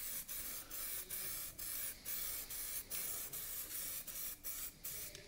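Aerosol spray can of primer hissing as it coats a plastic wheel trim, the spray broken by short pauses about twice a second as the nozzle is pressed and released.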